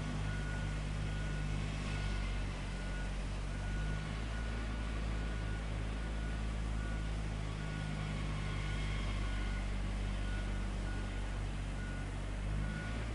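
A heavy vehicle's engine running steadily while its reversing alarm beeps over and over at an even pace.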